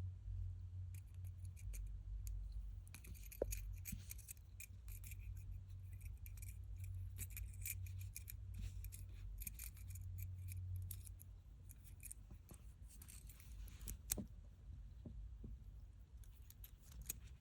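Faint, irregular light metallic clicks and ticks from a silver spinning fidget ring being handled and spun, over a low hum that fades about eleven seconds in.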